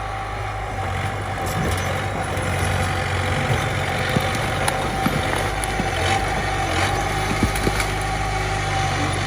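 Diesel engine of a Komatsu mini bulldozer running steadily at an even speed, with a few short clicks or knocks over it.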